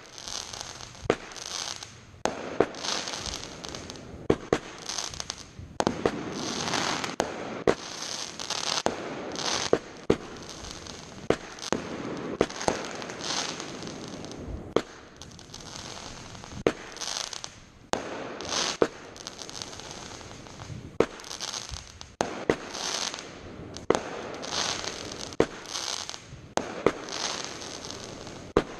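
Fireworks going off in quick succession: sharp bangs about every second, each followed by a crackling hiss.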